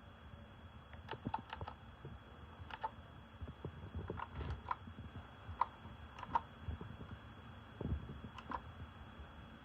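Keys pressed one at a time on an RK Royal Kludge S108 mechanical keyboard with clicky blue switches: about a dozen separate key clicks at an uneven pace, some in quick pairs.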